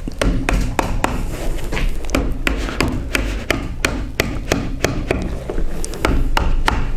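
Fibreglass moulding and mould giving a quick run of sharp clicks and cracks, about three a second, as the hull is pressed and prised with plastic demoulding wedges: the moulding is parting from the waxed mould.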